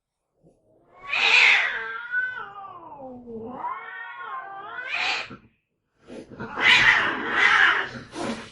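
A domestic cat hissing, then giving one long yowl that falls in pitch and rises again, then hissing twice more near the end: the hissing and caterwauling of an angry or defensive cat.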